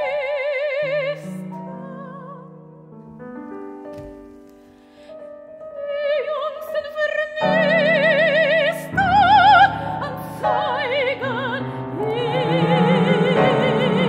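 Soprano singing with wide vibrato over piano. A held sung note ends about a second in, leaving quiet piano notes; the voice comes back in around six seconds and rises to its loudest high notes over piano chords, then holds a long note near the end.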